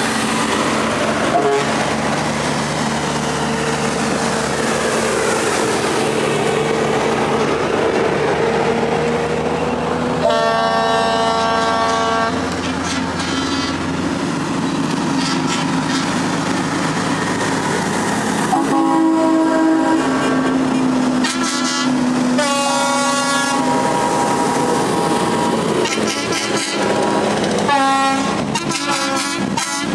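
Heavy diesel trucks driving past one after another, engines running, with loud multi-note air horns blasted again and again: a long blast about ten seconds in, then several more blasts in the second half.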